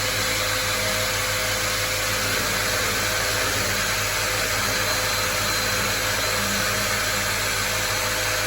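Drill running steadily at high speed without hammer action, its diamond-tipped bit grinding slowly into polished porcelain tile.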